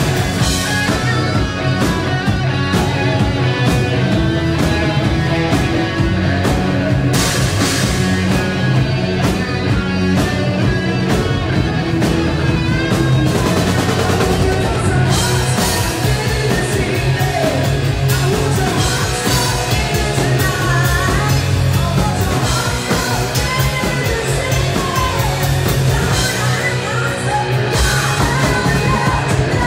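A rock band playing live and loud: electric guitars, bass, drums and keyboard, with singing over it.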